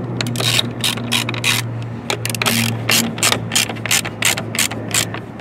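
Hand ratchet with a 10 mm socket clicking in a steady rhythm, about three to four clicks a second, as it tightens screws down.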